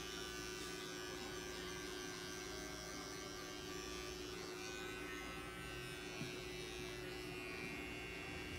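Small cordless electric pet clipper running with a steady buzzing hum as it trims a long-haired cat's matted fur.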